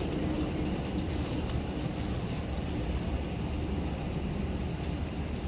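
Taipei Metro electric train running slowly along a depot track: a steady low rumble with no breaks.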